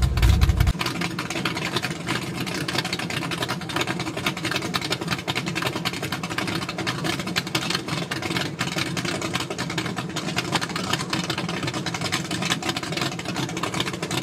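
Boat engine idling steadily; a heavy low rumble drops away about a second in.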